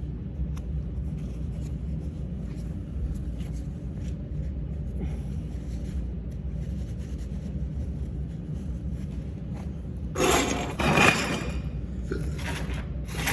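A steady low rumble of shop background noise, then a few short, loud scraping noises near the end.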